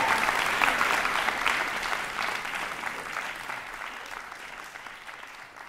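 Audience applauding, the clapping fading away steadily.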